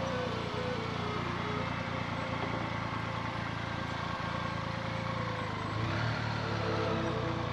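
Motorcycle engine running on the move, a steady low hum, with background music whose melody is heard at the start and again near the end.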